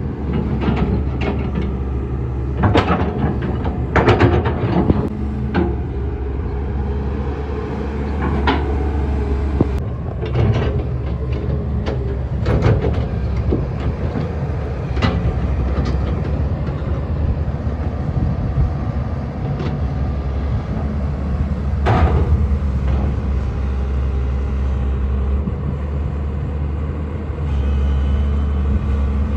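Diesel hydraulic excavator running steadily while loading a dump truck, with repeated knocks and clanks of the bucket and material striking; the loudest bang comes about two-thirds of the way through.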